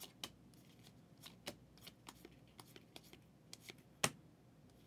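Faint, quick clicks and slides of a stack of trading cards being flipped through by hand, one card after another, with a sharper snap about four seconds in.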